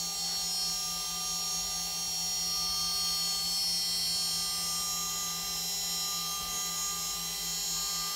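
A 2.2 kW water-cooled CNC spindle, driven by a VFD, spinning unloaded at about 24,000 RPM. It makes a steady whine of several high-pitched tones over a low hum, which sounds a bit like a spaceship.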